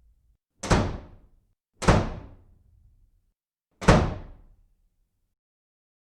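Three sharp, heavy impacts, each dying away within about half a second. The first two come about a second apart and the third about two seconds later.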